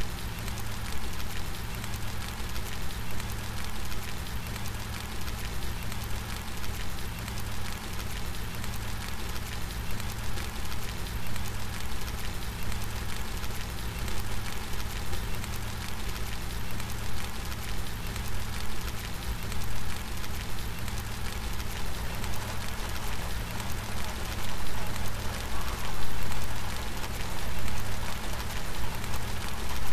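Steady rain falling, an even hiss of drops with a low rumble underneath, growing a little louder about two-thirds of the way through.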